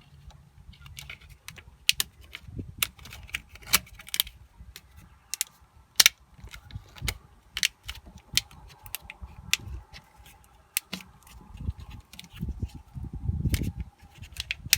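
Irregular light clicks and taps of small wiring parts being handled and pressed together by hand as a wire is forced into a new, stiff connector, with a low rumble of handling noise near the end.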